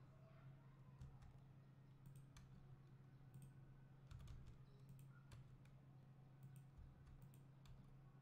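Faint, irregular clicks of a computer mouse and keyboard keys, about a dozen spread through, over a steady low hum.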